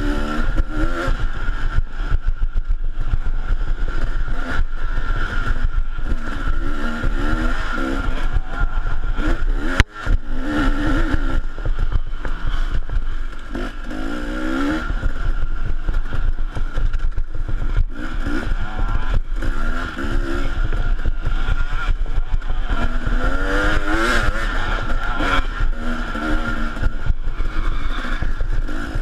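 Dirt bike engine, heard from a camera mounted on the bike, revving up and down again and again as the throttle is worked through a twisty trail, with a steady mechanical whine and rattle underneath. The engine sound drops out briefly about ten seconds in.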